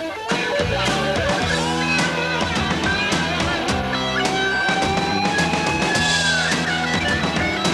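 Rock music with electric guitar and a drum kit playing a steady beat.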